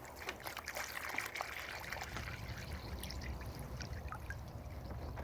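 Water trickling as it is poured from a gallon jug into a rabbit waterer, with small ticks and clicks throughout.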